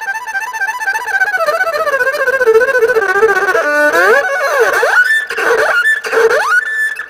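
Solo erhu bowed in a quick, rapidly wavering melody that falls in pitch over the first few seconds. After a brief break near the middle, it plays wide swooping slides up and down, ending on a high held note.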